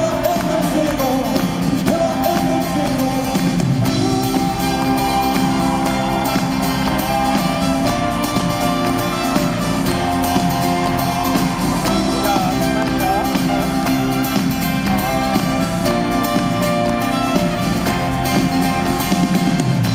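A live unplugged band playing a song, with a melody line over a steady accompaniment and no sung words.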